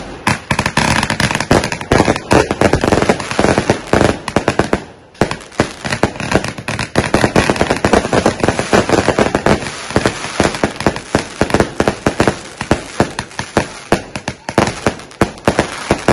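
A 4-inch, 138-shot firework cake firing a loud, rapid barrage of shots, many a second, with a brief lull about five seconds in.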